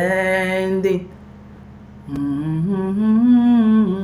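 A worship singer sings the last word of a line, then after a short pause hums a slow wordless melody that rises and falls.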